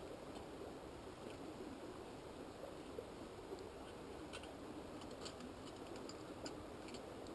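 Faint steady rush of a small brook flowing, with a few small light clicks in the second half.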